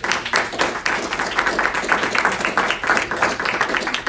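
A small group of people applauding, many hands clapping at once.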